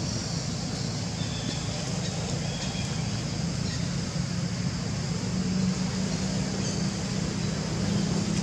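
Steady low background rumble with a low hum that grows a little louder about five seconds in.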